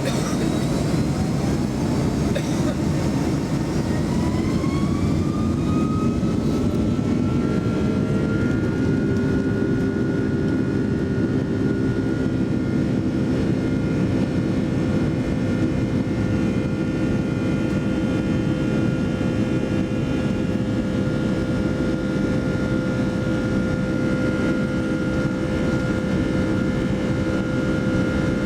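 Boeing 757-200's Rolls-Royce RB211 jet engines, heard inside the cabin, spooling up with a rising whine over a loud roar for the first eight seconds or so, then holding a steady pitch at takeoff thrust.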